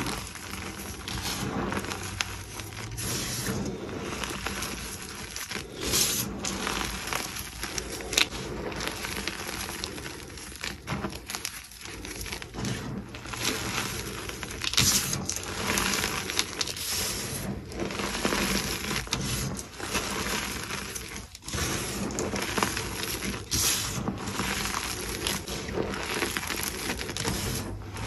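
Hands crushing and crumbling dyed gym chalk, lumps breaking between the fingers into powder: an irregular, gritty crunching and crackling with powdery rustling and many small sharp snaps.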